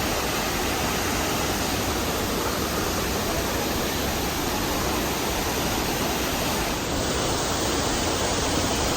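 Waterfall rushing steadily: a constant, even noise of falling water.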